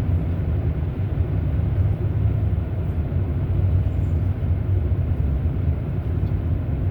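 Steady low rumble of a car driving down a steep snowy grade: engine and tyre noise at an even level.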